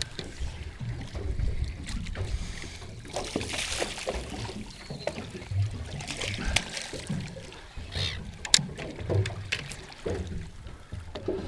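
Water slopping against a small boat's hull, with wind rumbling on the microphone and scattered sharp knocks on the boat, the loudest about eight seconds in.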